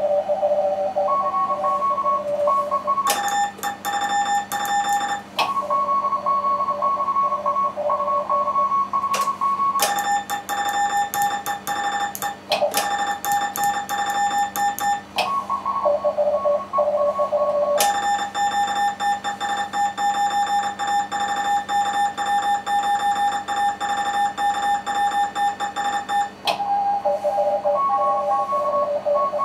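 Morse code (CW) from an amateur radio transceiver during a contest: several stations' keyed dots and dashes at slightly different pitches, overlapping, with long runs of a stronger, buzzier tone. A low mains hum sits underneath.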